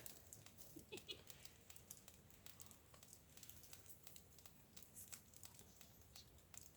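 Near silence: room tone with faint scattered ticks and rustles, and a couple of soft brief sounds about a second in.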